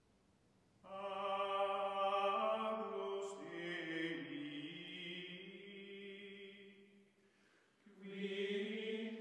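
Slow outro music of long, held, chant-like tones that shift pitch only a few times. It starts about a second in, fades out around seven seconds, and a new phrase begins near the end.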